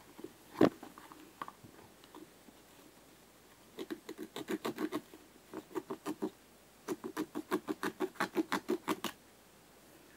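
Scissors snipping into a football boot in quick runs of short cuts, about five a second, in three groups. Before the runs there is a single sharp click about half a second in.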